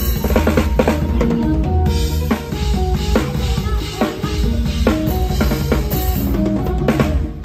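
Drum kit played live within a band's music: kick drum, snare and cymbal strikes packed densely over the band's bass and melody lines.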